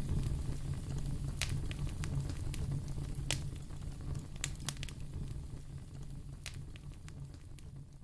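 Wood fire crackling in a fireplace: scattered sharp pops and snaps over a low rumble, the whole growing gradually quieter.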